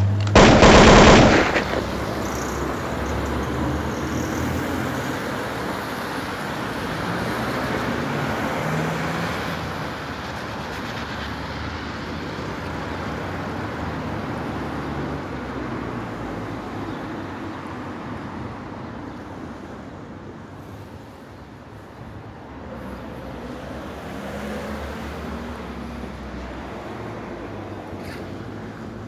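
Steady street traffic noise, opening with a loud rushing burst about a second long just after the start.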